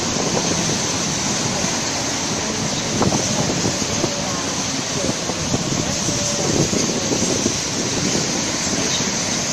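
Sydney Trains double-deck electric train moving slowly along the platform, a steady rushing noise with scattered clicks and a few faint squeals from the wheels and brakes. Wind buffets the microphone throughout.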